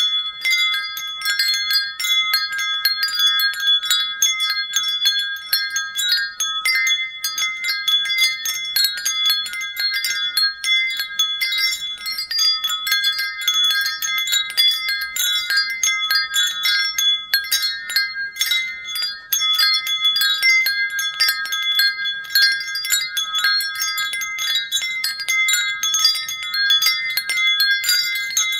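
Wind chimes ringing without pause: many overlapping strikes on tuned chimes of several pitches, each note ringing on under the next.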